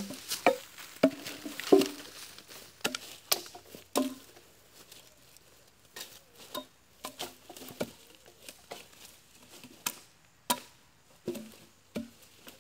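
Footsteps and handling in dry leaf and branch litter: irregular crunches, snaps and light wooden knocks. They are loudest in the first couple of seconds and grow sparser and fainter after that.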